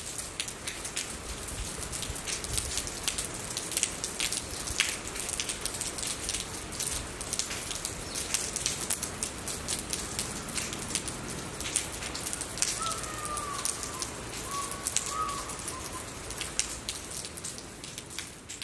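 Steady rain with many close, sharp raindrop hits. A faint short bird call comes twice about two-thirds of the way through.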